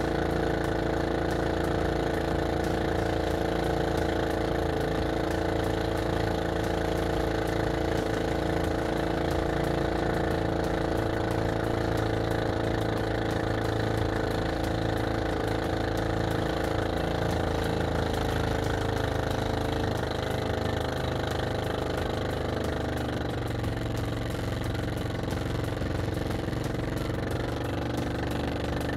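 Motor of a small outrigger fishing boat running steadily, the boat under way.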